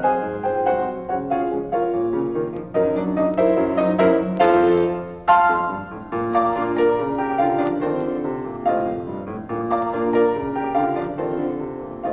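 Piano music: a run of struck notes and chords.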